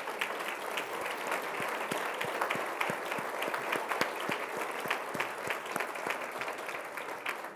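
Audience applauding: many people clapping steadily, easing off slightly near the end.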